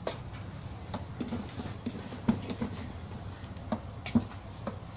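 Rice paddle stirring cooked rice in an electric rice cooker's inner pot: soft irregular scrapes and knocks of the paddle against the pot, a few a second, sharpest about two seconds in and near the end.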